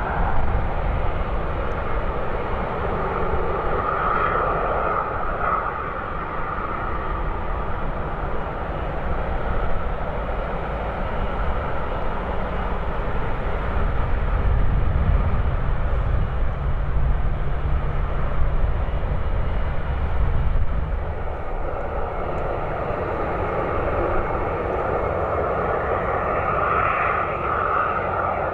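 Twin-engine jet airliner engines running, a steady jet roar with a whine on top. The low rumble swells for a few seconds past the middle, and the whine comes up strongly again near the end.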